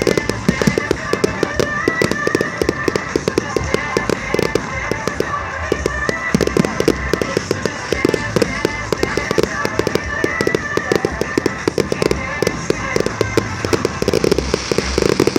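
Fireworks display going off in a dense, continuous barrage of rapid bangs and crackles, many reports a second.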